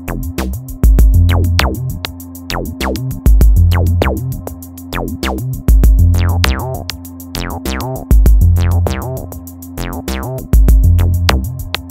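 Electronic background music: a heavy bass hit about every two and a half seconds, fast ticking hi-hats and repeated falling synth notes.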